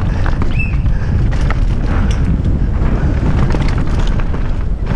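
Heavy wind noise on a helmet-mounted camera's microphone as a downhill mountain bike descends a dirt track at speed, with steady rumble and many short clicks and knocks as the bike rattles over the rough ground.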